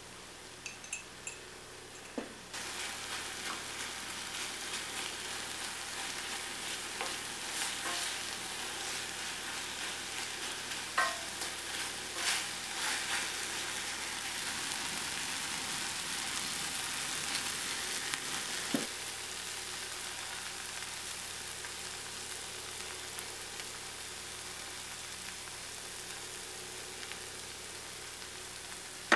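Kimchi stir-frying in a stainless steel pan: a steady sizzle that sets in about two and a half seconds in, with scattered clicks and scrapes of a utensil stirring against the pan in the middle stretch.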